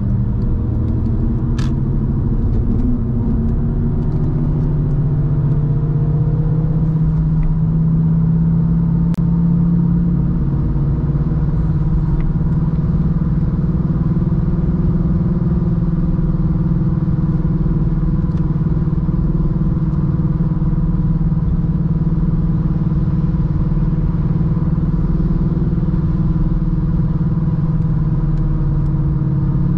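A 1999 BMW 316i E46's four-cylinder petrol engine, heard from inside the cabin at highway speed along with road and wind noise. The engine note rises in pitch over the first several seconds as the car gathers speed, then holds steady at cruise.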